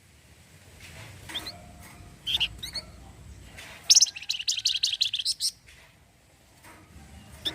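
Flamboyan (Javan fulvetta) calling: a few short high chirps, then about four seconds in a loud, rapid chattering trill of repeated notes ('cretetan') lasting about a second and a half.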